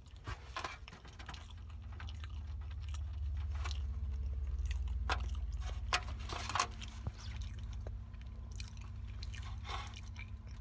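A person chewing food close to the microphone, with wet mouth clicks and smacks at irregular moments, over a low rumble that swells in the middle and fades again.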